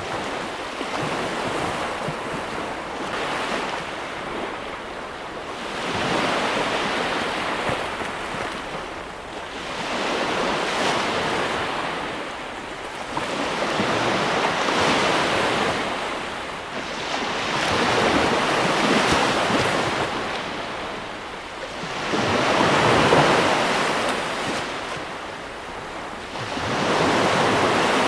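Sea waves breaking and washing onto a beach, the surf swelling and falling back every four to five seconds, with a constant wind rush beneath.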